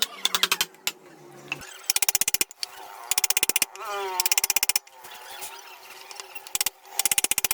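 Carving chisel being driven into wood by quick, light mallet taps, about ten a second in short bursts with pauses between.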